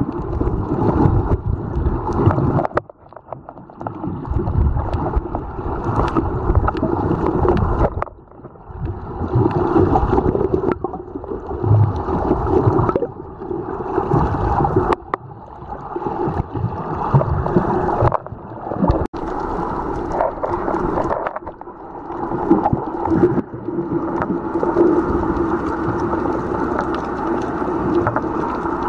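Muffled underwater sound picked up by a submerged camera: water rushing and sloshing with a steady low hum underneath. It drops away briefly a few times.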